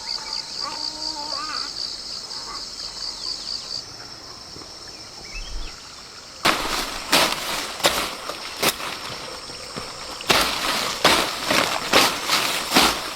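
An insect chirps in a fast, even, high-pitched trill for the first few seconds. From about six seconds in, a run of loud, irregular rustling or scuffing noises follows.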